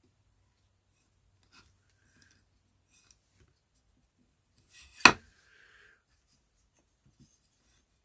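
Faint handling and rubbing as electrical wires are pulled through drilled holes in a small wooden mount, with a few light ticks and one sharp knock about five seconds in.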